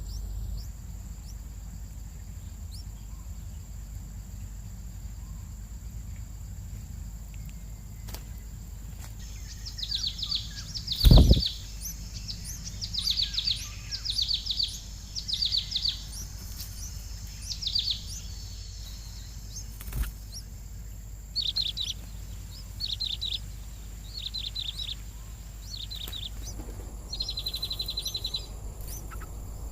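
Bulbul nestlings giving begging calls: repeated bursts of rapid high chirps starting about ten seconds in, coming every second or two. A single loud thump comes about eleven seconds in.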